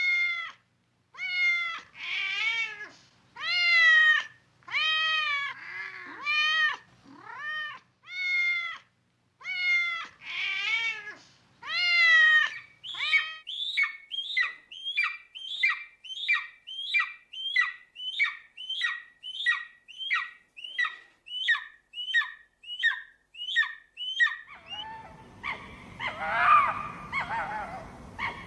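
A cat meowing, about ten separate meows that rise and fall in pitch. About halfway through it gives way to a quick run of short, falling squeaks about two a second, and a rougher, noisier cry comes in for the last few seconds.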